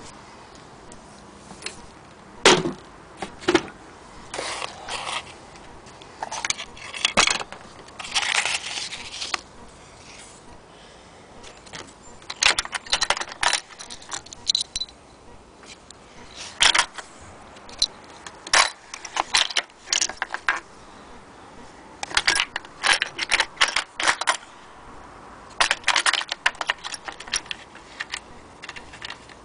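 Small metal sewing-machine accessories clinking and rattling against each other and the wooden case as they are handled, in irregular sharp clicks and short clatters with quiet gaps between them.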